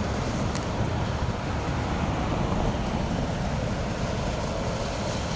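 Steady low rumble of freeway traffic and idling vehicles.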